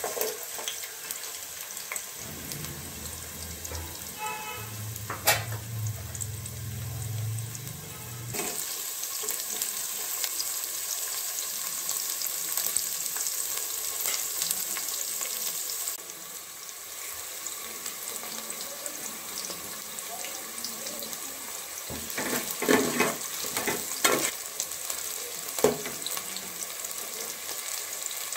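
Chopped onions sizzling as they fry in hot oil in an aluminium pot, a steady hiss that grows louder for a while mid-way. A few sharp knocks of a spoon against the pot come near the end, and a low hum runs for a few seconds near the start.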